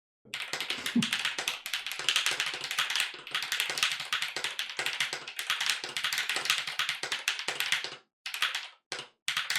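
Fast typing on an MG75W mechanical keyboard with Akko V3 Pro Creamy Blue switches: a dense, rapid run of key clacks, broken by two short pauses near the end.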